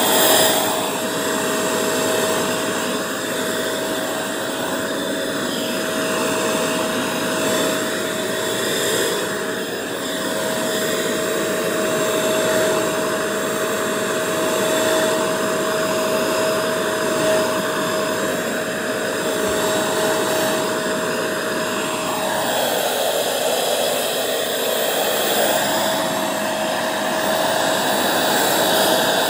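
Bissell 3-in-1 vacuum, used as a hand vac, running steadily with a motor whine over the rush of air as its nozzle works a shag rug strewn with Cheerios. About two-thirds of the way through the whine wavers for a few seconds, then settles again.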